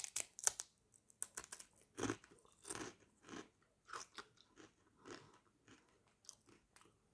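Biting into a Doritos tortilla chip with a sharp crunch, then crunchy chewing at about two chews a second that grows fainter.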